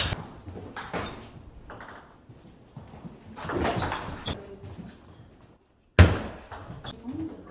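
Table tennis rally: the celluloid ball clicking off rackets and table in short sharp knocks. Just before six seconds the sound drops out briefly, then a sudden loud thump rings out and fades.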